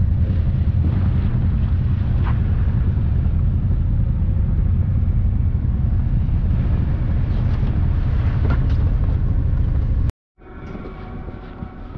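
ATV engine running as the machine rides along, a steady low drone. About ten seconds in it cuts off suddenly, and after a brief gap a quieter engine sound follows.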